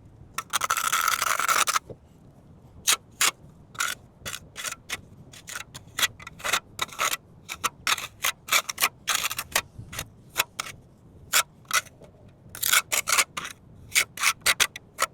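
A hand tool scraping and rubbing over a fresh quick-setting cement patch on concrete: one long scrape, then many short strokes, coming in quick runs near the end.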